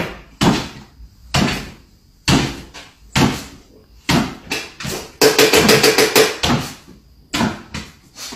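A series of sharp knocks or bangs, roughly one a second, with a quick rattling run of about eight knocks a second in the middle.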